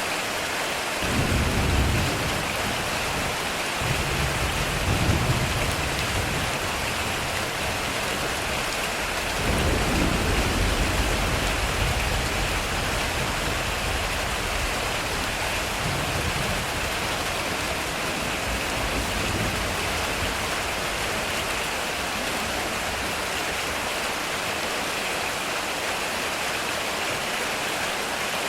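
Heavy rain falling steadily on a metal roof, with low rolls of thunder: one about a second in, another a few seconds later, the loudest starting near ten seconds in and lasting a few seconds, then fainter rumbles.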